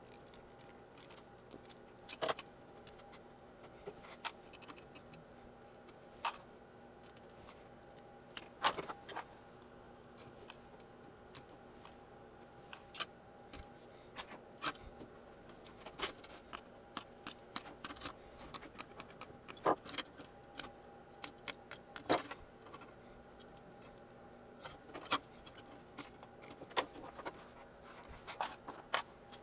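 Irregular metallic clicks and clinks as a stack of rotary wafer switches, strung with resistors, is handled and taken apart with pliers. A faint steady hum lies underneath.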